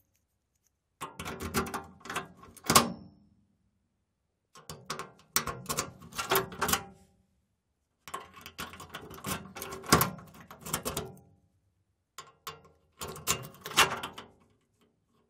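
Key turning in a metal locker's lock, unlocking and locking it: each go is a run of metallic clicks and rattles ending in a sharp clank. It happens four times, with silence in between.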